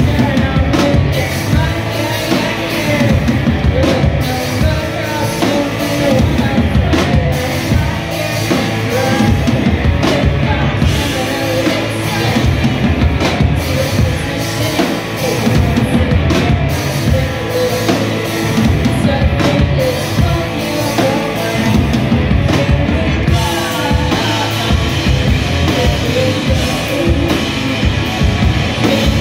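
Live rock band playing: electric guitars and a drum kit, with a woman singing lead vocals.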